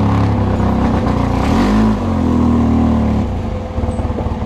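Off-road vehicle engine revving up and back down twice, then dropping to a low, pulsing idle near the end.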